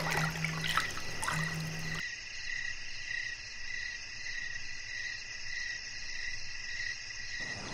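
Night-time ambience of chirping insects: a steady, evenly pulsing high chorus.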